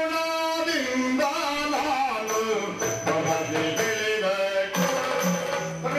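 Yakshagana theatre music: a singer holding long, drawn-out notes, with drum strokes joining in about two seconds in.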